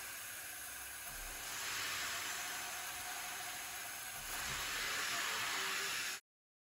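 Creality K2 Plus 3D printer running mid-print, a steady, very quiet hiss that swells twice as the print head works, then cuts off suddenly near the end.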